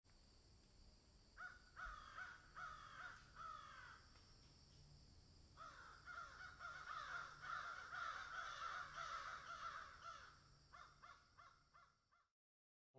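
Faint series of short, falling animal calls, repeated several times a second in two runs. A few scattered calls follow before the sound cuts off suddenly near the end.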